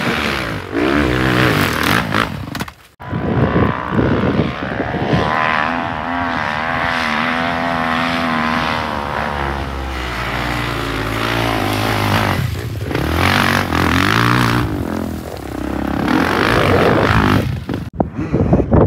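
Kawasaki KX450 dirt bike's single-cylinder four-stroke engine revving hard as it climbs a steep, loose slope, its pitch wavering up and down with the throttle. The sound breaks off briefly about three seconds in and again near the end.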